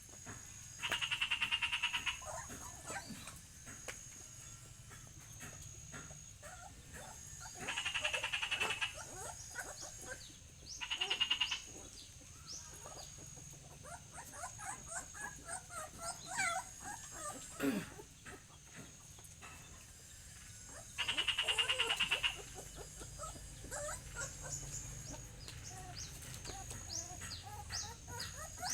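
Animal calls: four trilled, rapidly pulsed calls about a second long, spaced several seconds apart, over scattered small chirps and squeaks and a thin high-pitched on-off buzz.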